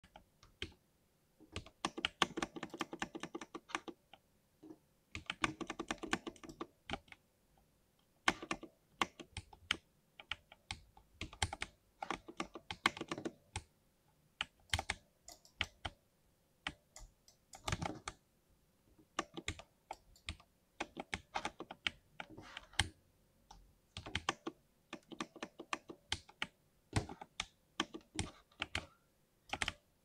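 Typing on a lubed 60% mechanical keyboard: fast runs of keystrokes broken by short pauses, along with scattered single key presses.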